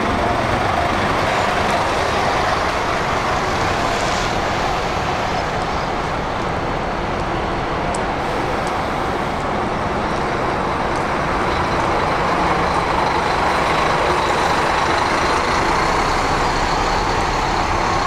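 Large diesel bus running close by, a steady engine and road noise. A faint high whine comes in about two-thirds of the way through and rises slightly.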